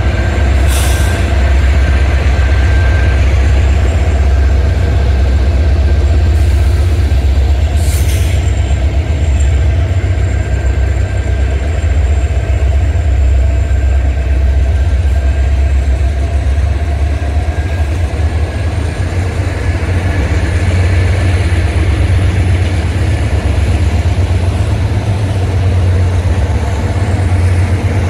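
Union Pacific diesel-electric locomotives under power, pulling a double-stack container train away from a stop, with a heavy, steady low engine drone as the units roll past. Two short hisses sound about a second in and again about eight seconds in.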